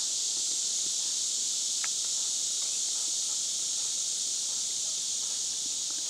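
Steady, shrill chorus of insects in the woods: an unbroken high-pitched buzzing hiss with no pauses or rhythm.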